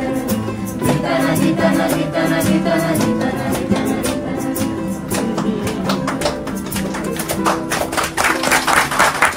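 A group of voices singing together to a strummed acoustic guitar and ukulele, with a steady strummed beat. It grows louder and busier near the end.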